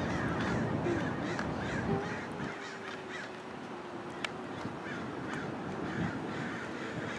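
Birds calling over and over, a few short calls a second, over a low rumble that fades out about two and a half seconds in. A single sharp click comes about four seconds in.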